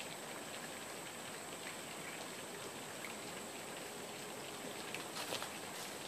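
Open-country outdoor ambience: a steady hiss under a constant high-pitched insect drone, with scattered faint ticks and a few louder ones about five seconds in.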